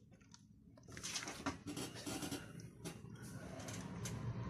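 Faint rustling and light pattering of chopped walnuts being sprinkled by hand onto milk-soaked güllaç sheets, starting about a second in as a string of small soft clicks.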